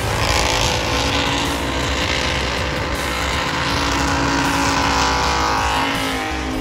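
A car doing a burnout: its engine held at high, steady revs while the spinning rear tyres screech and hiss.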